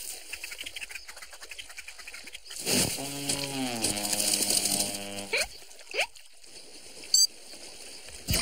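Cartoon sound effects: a drawn-out tone that drops in pitch and then holds for about two seconds, followed by two quick rising whistles and a sharp snap near the end.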